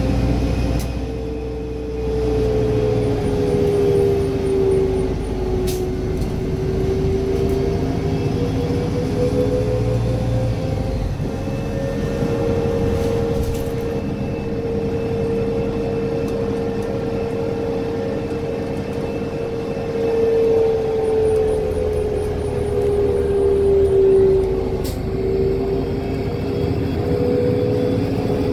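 New Flyer D60LF articulated diesel bus heard from inside the cabin at highway speed: steady engine and road rumble under a prominent whine that sags in pitch and comes back up twice.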